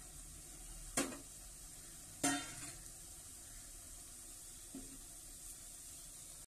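Semolina patties deep-frying in hot oil in a pan: a steady sizzle, broken by two sharp knocks about one and two seconds in and a softer one near the end.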